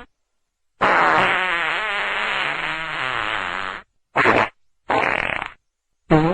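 A string of fart sounds separated by dead silence: one long fart of about three seconds with a wavering pitch, then two short ones, and another starting near the end.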